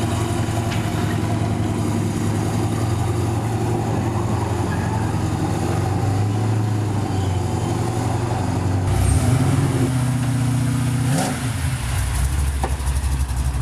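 Car engine idling with a deep, steady note. Around nine seconds in it gets louder, and about eleven seconds in a quick rising rev is followed by a deeper idle.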